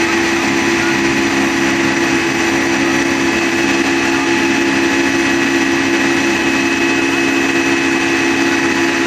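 A 75 hp crawler tractor engine running steadily while driving a rear-mounted rotary tiller through the soil, with a constant mechanical whine over the engine noise.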